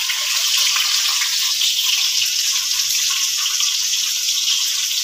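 Sliced red onions frying in hot oil with bay leaves in a kadai: a steady sizzle with small crackles.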